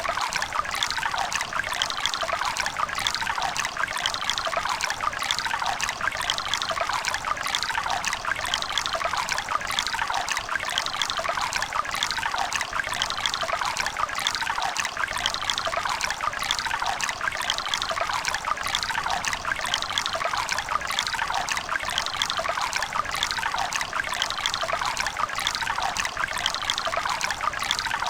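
Running river water babbling and trickling steadily, a bright splashing rush with little low rumble.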